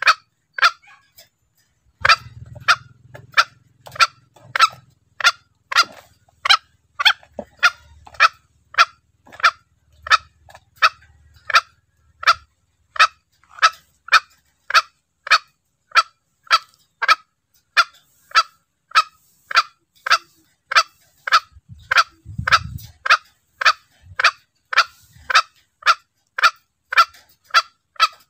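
Green junglefowl calls from a hunting lure recording: a short, sharp call repeated evenly about one and a half times a second, with a brief pause just after the start.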